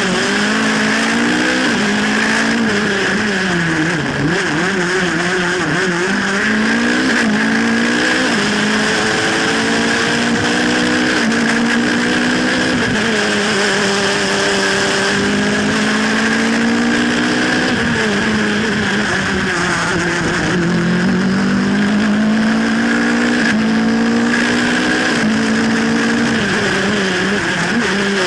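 Ligier JS49 sports prototype's engine at racing load, heard from inside the cockpit: the revs climb and fall again and again as it works through the gears and slows for bends, over a steady rush of wind and road noise.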